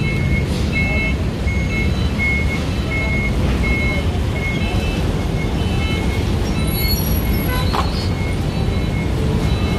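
Busy street-market din: a steady rumble of traffic and crowd. Over it an electronic beep repeats about every three quarters of a second, plainest in the first half and fading towards the end.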